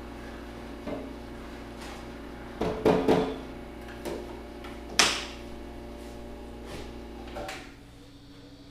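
Espresso-bar equipment being handled: sharp knocks and clanks of metal and ceramic, with a cluster of hits about three seconds in and the loudest single knock about five seconds in. Under them is a steady machine hum that stops near the end.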